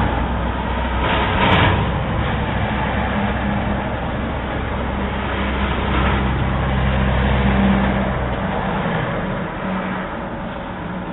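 A motor vehicle engine running close by, a steady low hum with short rushes of noise about one and a half and six seconds in; the deepest part of the hum drops away about eight and a half seconds in.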